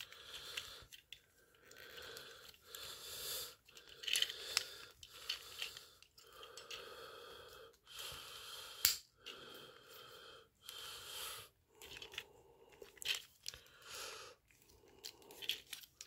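Hard plastic parts of a Transformers Legacy Evolution G2 Dead End action figure clicking and scraping as it is transformed by hand. Sharp clicks come among softer, uneven rustling stretches.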